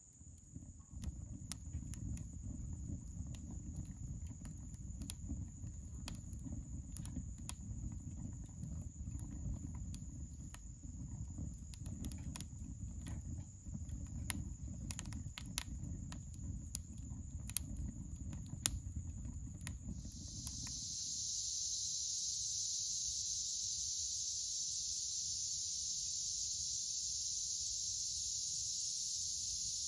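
A fire burning in a metal fire pit: a low rumble of flame with scattered pops and crackles. About twenty seconds in it cuts to a steady, high chorus of insects in the woods.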